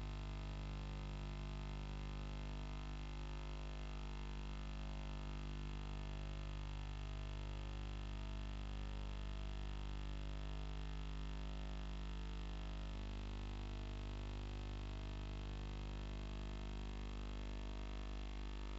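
Steady electronic drone of many sustained tones over a strong low hum, with no beat or speech; the lower tones shift once about thirteen seconds in.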